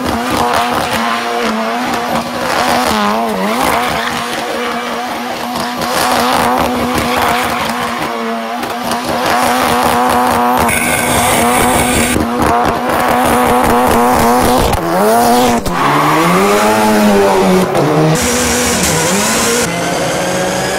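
Highly modified four-wheel-drive Ford Fiesta rally car engine running at high, nearly constant revs while drifting, with a rapid crackle and squealing tyres. From about fifteen seconds in, the engine revs rise and fall repeatedly.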